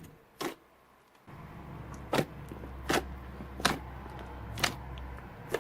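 Slime being pressed and stretched by hand, giving sharp clicking pops as trapped air bursts, roughly every three-quarters of a second. A steady low hum comes in a little over a second in.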